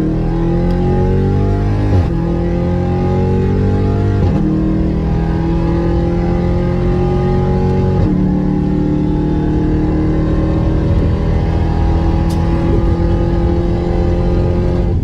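Jeep Grand Cherokee Trackhawk's supercharged 6.2-litre Hemi V8 accelerating hard, heard inside the cabin. The engine's pitch climbs through each gear and drops at an upshift about 2, 4 and 8 seconds in, then keeps rising slowly in the next gear.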